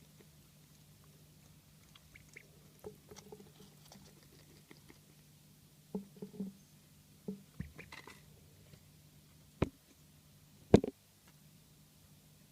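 A duckling wheezing: soft, scattered crackling and clicking breath sounds over a steady low hum. Two sharp knocks come late, the second the loudest sound.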